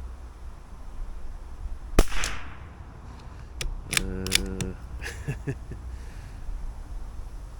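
A single .22LR shot from a CZ457 bolt-action rifle about two seconds in, a sharp crack with a short tail. About two seconds later come a run of metallic clicks and a brief scrape, then a few more clicks, as the bolt is worked to chamber the next round.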